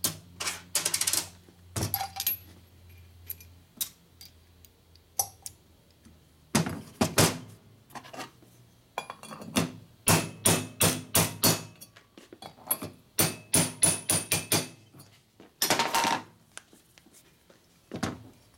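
Light hammer taps on a seal installation tool, driving a valve stem seal down onto the valve guide of a Harley-Davidson Sportster Ironhead cylinder head. The taps come in quick runs of several a second, mostly in the second half, with scattered metal clinks of parts being handled earlier.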